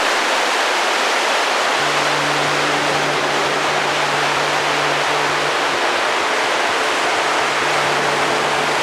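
Steady, loud rush of flowing water, like a waterfall or fast stream. Faint held music notes sound underneath from about two seconds in.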